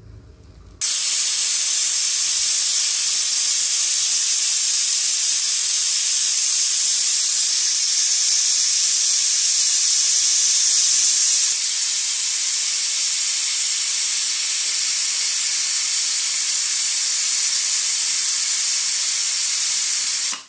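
Aluminium Prestige Popular pressure cooker letting off steam from under its weight: a loud, steady hiss that starts abruptly about a second in. The cooker is at full pressure, giving one of its 'whistles'.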